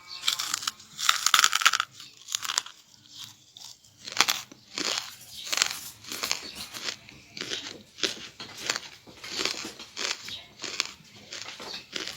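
Charcoal being bitten and chewed close to the microphone: a long crunching bite at the start, then a steady chewing rhythm of sharp crunches about every half second.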